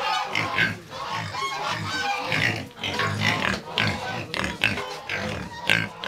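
Several young pigs grunting and squealing in a pen, a busy run of short overlapping calls.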